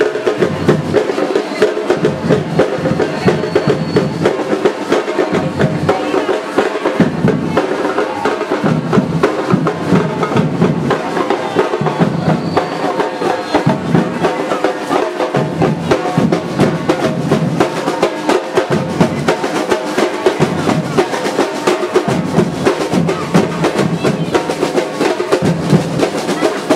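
Batucada drum troupe playing: many drums, snares among them, beating a steady, dense rhythm.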